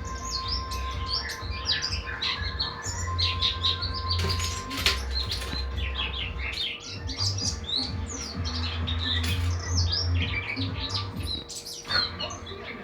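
A small bird chirping and twittering in a rapid stream of short, high calls, over a low steady hum.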